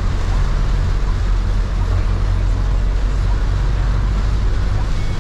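Steady in-cabin noise of a Toyota van driving in heavy rain: a low engine and road drone under an even hiss of rain and wet tyres.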